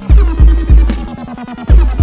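Electronic dance music with heavy, deep bass hits: three in quick succession near the start and another near the end, over steady synth tones.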